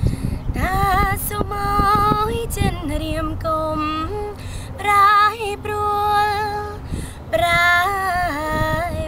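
A woman singing a Khmer song a cappella, a single unaccompanied voice holding long notes with vibrato and gliding between pitches, with brief breaths between phrases.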